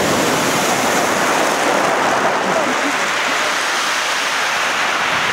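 Steady, even rushing noise of sea surf and wind.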